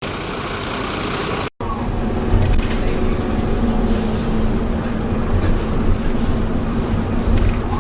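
Optare Solo bus running, with a steady low rumble and a constant whine from its Allison automatic gearbox. The sound cuts out for an instant about one and a half seconds in.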